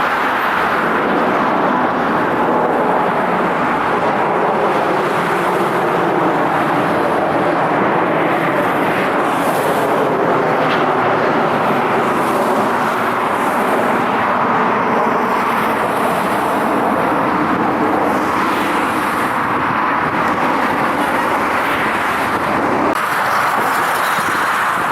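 Jet airliner engines giving a loud, steady rush of noise with little change in level.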